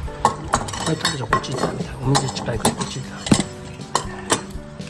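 Stainless steel food bowls clinking and knocking as cats eat dry kibble from them on a wooden floor: an irregular run of light metallic clicks, the sharpest about three seconds in.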